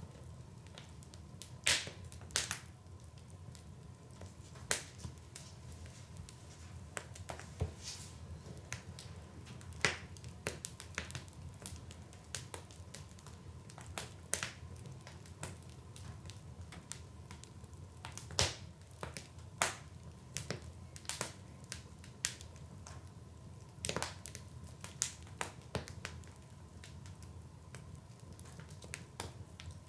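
Wood fire burning in a fireplace: irregular sharp crackles and pops of burning firewood over a steady low rumble of flame.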